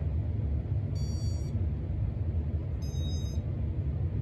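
Two short, high electronic beeps about two seconds apart, each with a slightly different pitch: the piezo beeper on a 1989 Casablanca Four Seasons ceiling fan's control board, answering as the fan is restarted and its speed set. A low steady rumble runs underneath.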